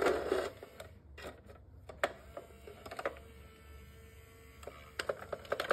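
Cat coin bank's lid and pop-out paw mechanism clicking and knocking, with a scuffling knock right at the start and scattered sharp clicks after it. A faint steady hum runs through the middle.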